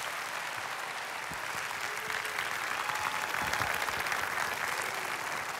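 Audience applauding steadily in an auditorium.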